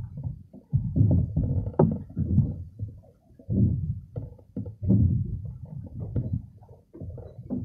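Water sloshing and slapping against the wooden dock, in irregular low surges about once a second.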